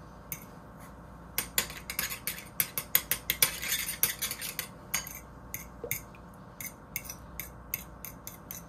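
Metal fork beating a raw egg in a small ceramic bowl, its tines clinking against the bowl. The clinks come in a fast, dense flurry for the first few seconds, then settle into evenly spaced taps about three a second.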